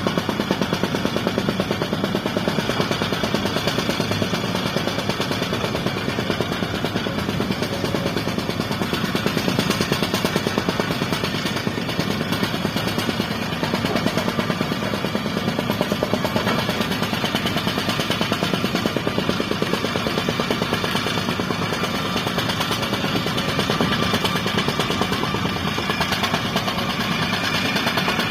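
Heavy diesel engine of construction equipment running with a rapid, steady clatter.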